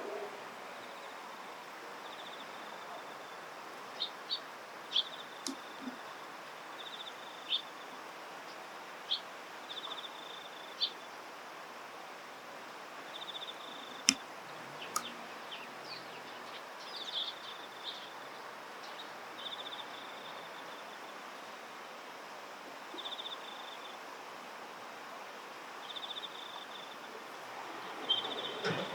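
Eastern spot-billed ducklings peeping: short high calls and brief trilled calls come again and again at uneven intervals over a steady outdoor hiss. A single sharp click sounds about halfway through.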